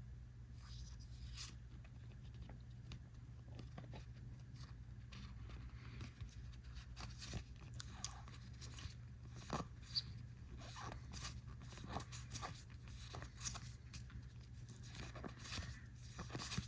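One Piece trading cards being handled: cards slid and flipped against one another and the crinkly wrapper of a booster pack, giving a dense string of quick soft swishes and clicks over a steady low hum.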